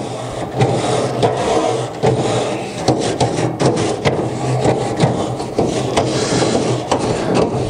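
Traeger nylon cleaning brush scrubbing back and forth across the metal grill grate of a Traeger Timberline 850 pellet grill, the grate wet with cleaning spray: a steady rasping scrub in repeated strokes.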